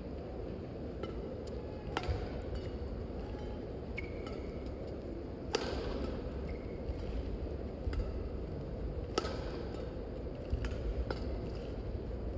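Badminton rackets striking a shuttlecock in a rally, one sharp hit every one to two seconds, with short squeaks of court shoes between the hits, over a low hall hum.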